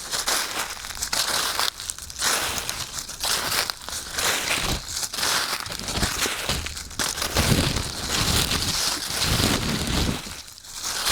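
Footsteps crunching through dry fallen leaves at a walking pace, each step a crackling crunch separated by short pauses.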